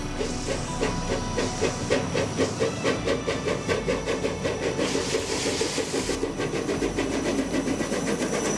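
Small 600 mm narrow-gauge steam locomotive hauling a freight train past at low speed: its exhaust chuffs in a quick regular beat, about four a second, over steady steam hissing. A louder burst of hissing steam comes about five seconds in.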